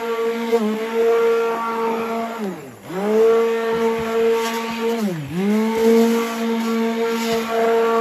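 Handheld stick blender motor running with a steady whine as it whips thick homemade soap paste. Twice, about three and five seconds in, the motor slows sharply and speeds back up.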